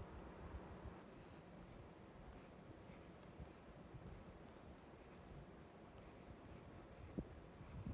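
Graphite pencil drawing short lines on paper: faint, intermittent scratching as the strokes are made, with one short tap a little after seven seconds in.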